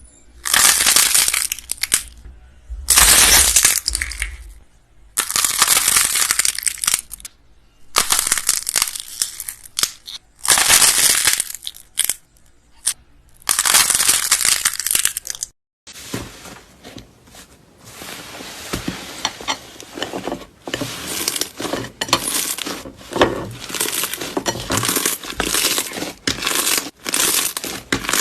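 Crunchy slime squeezed and pressed by hand, giving crackling, crunching strokes. The first half holds about six separate squeezes, each lasting about a second. After a short break midway, it turns into a denser, continuous crackle of many small pops.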